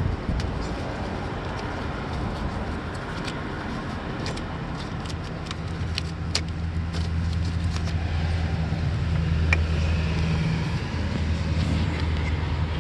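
A vehicle engine runs steadily nearby with a low hum that comes in about four seconds in, while light metallic clicks and clinks of hand tools sound on and off.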